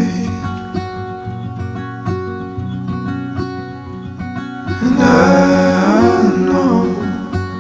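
A song with guitar accompaniment; a sung vocal line comes in about five seconds in.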